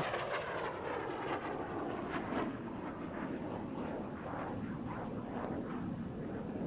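Jet aircraft flying an aerobatic display, its engine noise a steady rush with a sweeping, shifting tone as it moves across the sky.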